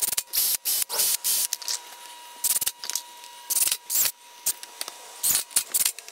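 A power driver driving screws up through the pre-drilled two-by-fours into the wooden seat struts, running in a string of short bursts with brief pauses between them.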